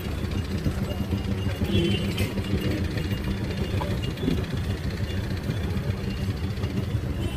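Auto rickshaw engine running in slow street traffic, a steady low drone with the mixed noise of the busy road around it.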